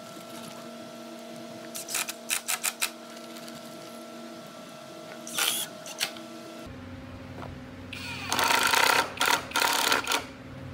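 Cordless drill driving screws into a hardwood frame in bursts: a quick run of short trigger pulses about two seconds in, a brief burst halfway, and a longer run of about two seconds near the end, over a steady background hum.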